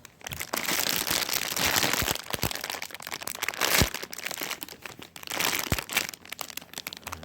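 Crinkly plastic packaging crackling as a foam squishy is squeezed inside it, in irregular loud clumps of crinkling with quieter gaps.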